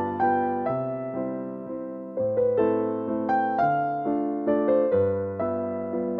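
Background piano music: a gentle melody of single notes over sustained low chords, each note struck and fading.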